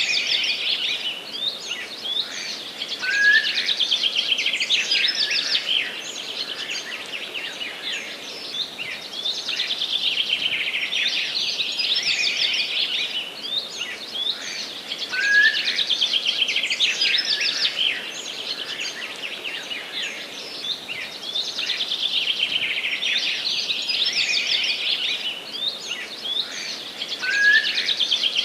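Forest birds singing as a dense chorus of fast trills and chirps, with a louder burst of song about every twelve seconds.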